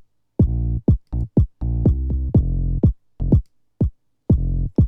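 Drum-machine kick and synth bass from a house track, playing short, chopped notes that stop abruptly with silences between them. The bass is ducked with ShaperBox so it drops away at each kick hit, keeping the two from overlapping.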